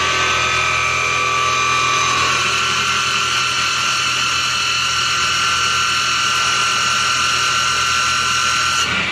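CNC flat-bed lathe running a machining cycle on bar stock: a steady high-pitched motor whine over a low hum. Its pitch steps up slightly about two seconds in, and it stops abruptly near the end.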